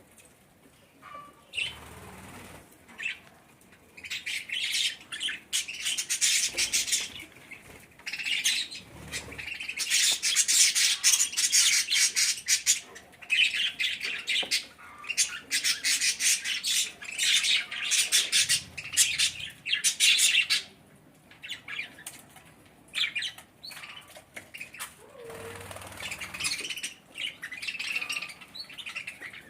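Budgerigars chattering and chirping in rapid bursts of a few seconds each, broken by short pauses, with a few faint low thuds.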